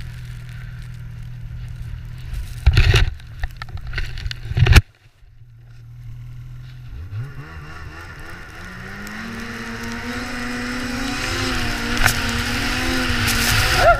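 Ski-Doo 800 two-stroke snowmobile engine idling, with two loud knocks about three and five seconds in as the tipped sled is handled, then a sharp brief drop in sound. From about seven seconds in the engine revs up and holds a steadily rising note as the sled pulls away through deep snow.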